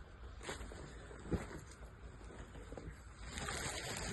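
Faint handling noise as vests are picked up and moved, with a single knock just over a second in and louder rustling near the end.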